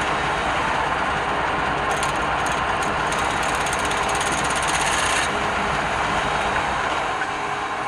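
Wood lathe running with a turning tool cutting the spinning wood, a steady rushing noise; from about two to five seconds in the cut turns brighter and scratchier.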